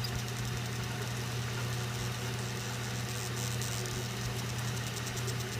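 A CTC unit running with a steady, unchanging low hum. This is the machine whose squeaking is being recorded, though no clear squeal stands out above the hum.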